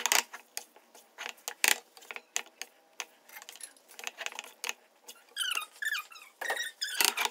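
Slotted wooden spatula tossing noodles in a nonstick wok: irregular scrapes and knocks against the pan, with a few short squeaks about five to six seconds in and again near the end.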